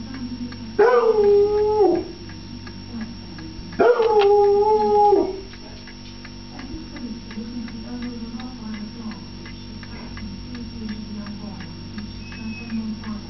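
Foxhound howling: two loud, drawn-out howls about a second and a half long, one about a second in and one about four seconds in, each starting high, dropping quickly and then held on one note. Softer low whining runs between and after them, the hound calling for his food.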